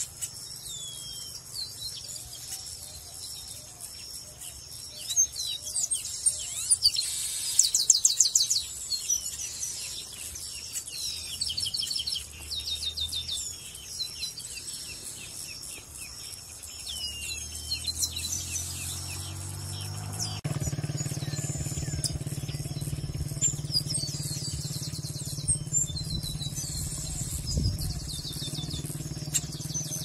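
Chestnut-capped blackbirds calling: many short high chirps and descending whistles, with a burst of rapid trilling notes about seven seconds in. Past the halfway mark a low engine hum rises and then holds steady under the birds.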